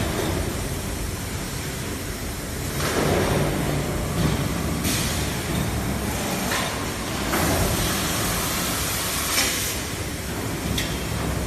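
Pneumatic bag conveying and sewing machine running: a steady mechanical hum with repeated bursts of compressed-air hiss, the longest lasting about two seconds, and a sharp click near the end.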